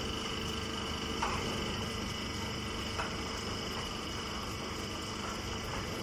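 Steady mechanical hum of a hydraulic straw baling line, with a few faint clicks.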